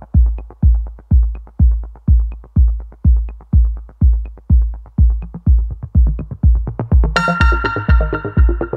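Electronic background music: a steady kick drum at about two beats a second, with a bright synth melody joining about seven seconds in.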